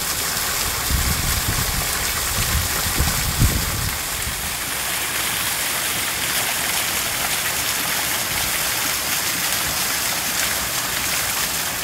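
Small waterfall splashing down a rock face into a shallow rocky pool: a steady rush of falling water, with some low rumbling during the first few seconds.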